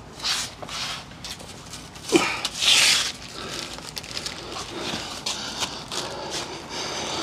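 Handling noise from a plastic parts bag being picked up and moved about: scattered small clicks and knocks, with short rustling bursts, the loudest a little under three seconds in.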